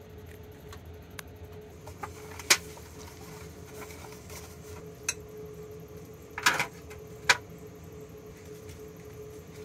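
Kitchen items being handled: scattered clicks and knocks from an oil bottle and its cap, a foil loaf pan and a glass mixing bowl, over a steady faint hum. The sharpest knock comes about a quarter of the way in, and a short clatter and another knock come past the middle.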